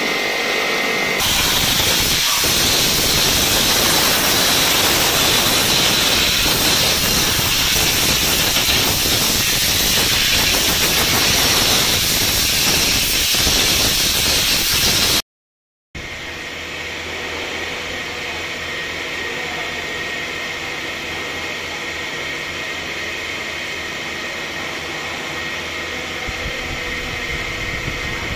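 Compressed air blasting from an air-gun nozzle through the ports of a freshly washed engine cylinder head, a loud steady hiss that blows the wash water out. It cuts off suddenly about halfway, and a quieter steady drone with a faint high whine follows.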